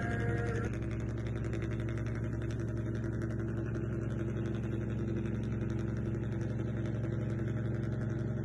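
A motor running steadily at an even pitch, a constant low hum like an idling engine. Music fades out just under a second in.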